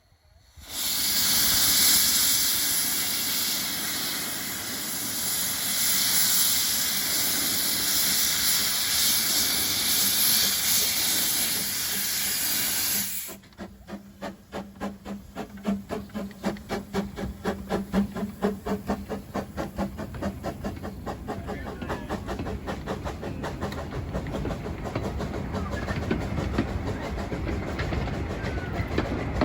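Narrow-gauge steam locomotive hissing loudly with escaping steam for about twelve seconds. The hiss cuts off suddenly and the engine's exhaust beats start, slow at first and quickening as the train pulls away.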